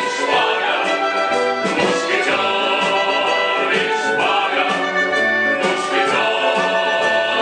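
Singers performing with a live orchestra, in long held notes over the accompaniment.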